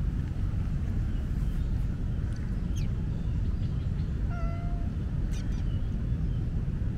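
Tabby street cat giving one short, level meow about four seconds in, over a steady low background rumble.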